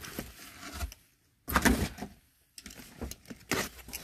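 Cardboard boxes being handled and packing tape slit with a box cutter: short scraping and rustling bursts with a few knocks, the loudest about halfway through. The sound cuts out to dead silence twice, briefly.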